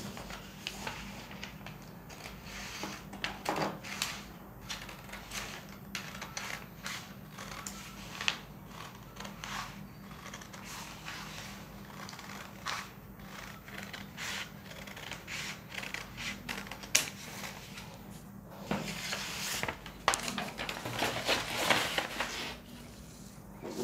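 Scissors snipping through a sheet of paper in a run of short, irregular cuts. Near the end comes a louder stretch of paper rustling and handling as the cut-off part is pulled away.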